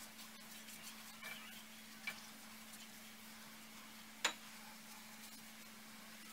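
Faint kitchen handling noises: a few small clicks and one sharp click about four seconds in, over a steady low hum.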